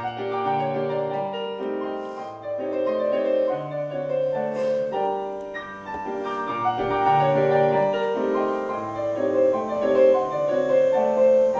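Grand piano played solo: a melody over held chords and bass notes.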